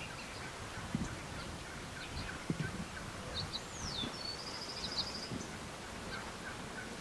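Gould's wild turkeys strutting close by: soft calls and a few short low thumps. A small songbird's down-slurred whistle and trill come in about three and a half seconds in.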